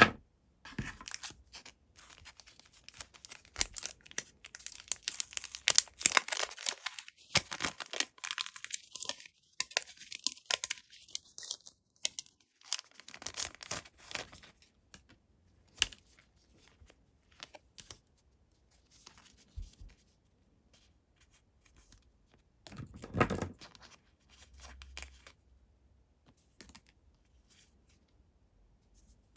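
Blind-box packaging being torn open, with crackling and crinkling for the first dozen seconds. Then come scattered clicks and rustles of the pieces being handled, with one louder rustle a little before the end.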